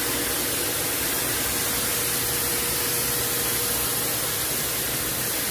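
Electric-motor power-spray pump running while water jets from its spray-gun lance: a steady hiss with a steady hum underneath.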